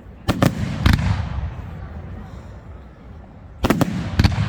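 Aerial fireworks bursting: two quick groups of three sharp bangs about three seconds apart, each bang trailing off in a low rumbling echo.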